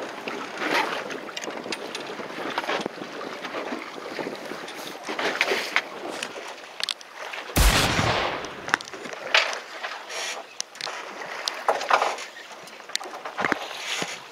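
Water splashing and wind on the deck of a small fishing boat at sea, with a loud thump about halfway through.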